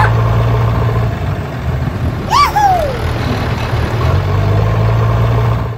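Tractor engine running steadily at idle with a low hum, as the sound of the mini tractor. About two and a half seconds in, a short voice-like sound rises and then falls in pitch.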